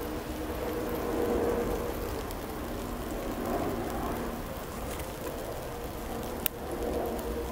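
Green peppers sizzling in a cast-iron skillet over an open wood fire, a steady hiss with the fire crackling, and one sharp click about six and a half seconds in.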